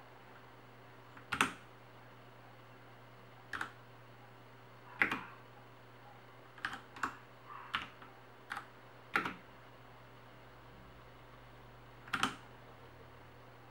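Keys pressed one at a time on a Ducky Shine 3 mechanical keyboard: about ten separate clicks at irregular intervals, several in quick succession around the middle.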